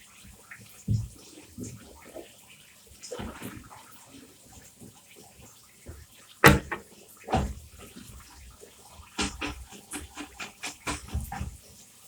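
Plastic vacuum parts being washed by hand in water: irregular splashes and knocks against a basin, the loudest knock about halfway through, then a run of quick clicks and splashes near the end.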